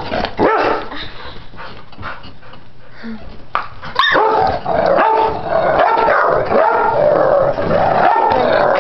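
Two dogs, an older dog and a pit bull puppy, barking and yipping in rough play. The calls are sparser and quieter for the first few seconds, then come almost without a break from about four seconds in.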